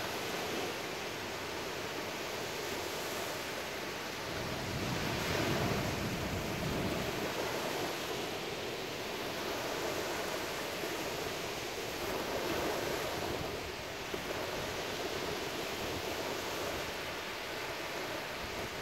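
Small ocean waves breaking and washing up the shore in a steady hiss of surf that rises and falls, swelling louder twice as bigger waves break.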